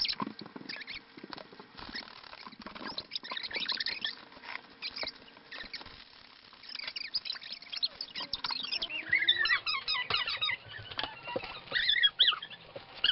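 Rapid rustling and small clicks of a plastic zip-top bag being handled, with short high squeaks from about nine to twelve seconds in.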